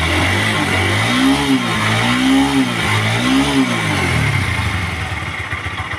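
TVS Apache RTR 160 4V single-cylinder engine blipped three times, about a second apart, then settling back to a steady idle. It runs smoothly after its loose tappets (valve clearances) were reset.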